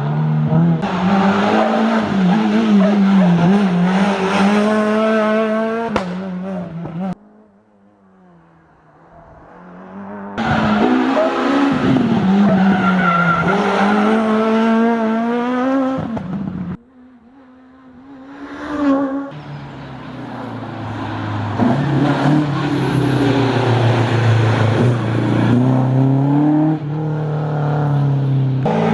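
Rally cars on a special stage, one after another, engines revving hard with the pitch climbing and dropping as they shift gear. The sound cuts off suddenly twice, and each time a car builds from faint to loud as it comes closer.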